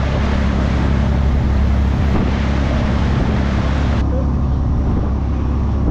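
Sportfishing boat under way: a steady low engine drone under the loud rush of churning wake water, with wind on the microphone. About four seconds in the hiss drops away sharply, leaving the engine drone and a softer wash of water along the hull.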